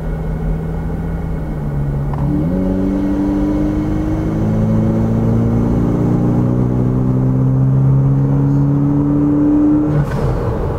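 Turbocharged 2.7-litre 3RZ-FE four-cylinder in a Toyota 4Runner, heard from inside the cabin, accelerating from a rolling start. The engine note dips briefly about two seconds in, then climbs steadily and gets louder for about seven seconds, and drops off near the end.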